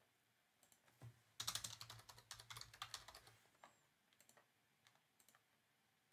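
Faint computer keyboard typing: a quick run of keystrokes lasting about two seconds, followed by a few scattered single clicks.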